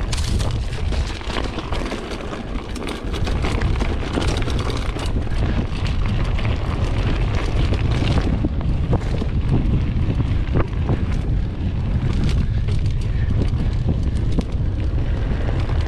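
Heavy wind buffeting on an action camera's microphone, with the dense clatter and rattle of a mountain bike riding fast over rough trail.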